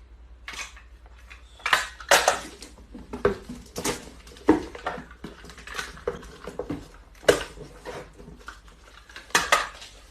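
Irregular clinking and clattering of hard objects, like dishes or metal utensils knocking together, about a dozen sharp strikes at uneven intervals.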